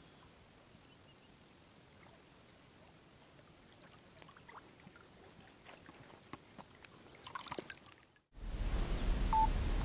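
Faint splashing and lapping of water as a person wades chest-deep through a reservoir, getting louder as the wader comes close. About eight seconds in it cuts abruptly to a steady hiss, with one short beep.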